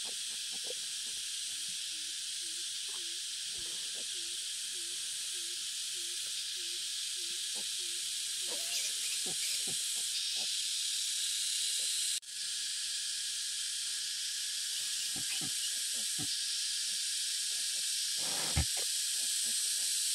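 Steady high-pitched hiss of forest insects, with a faint row of short low notes early on and scattered soft clicks and rustles. The hiss breaks off for a moment about twelve seconds in.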